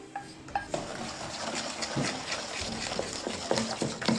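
Wooden spoon stirring melted chocolate into beaten egg yolks in a bowl: a steady wet scraping and sloshing of thick batter, with a brief clink of the saucepan near the start.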